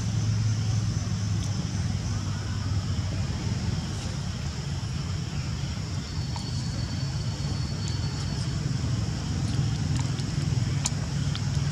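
Steady low background rumble under a faint hiss, with a thin high whine held for about two seconds in the middle and a few faint ticks.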